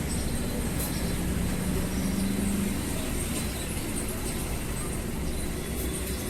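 Steady low rumble of background noise, with a low hum that swells briefly about two seconds in and a few faint light ticks.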